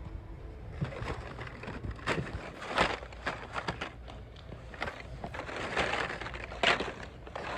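Hot Wheels blister-card packages (cardboard backing cards with plastic bubbles) being pushed and shuffled by hand in a cardboard bin: an irregular rustling with sharp plastic clicks and clacks, loudest about three seconds in and again near the end.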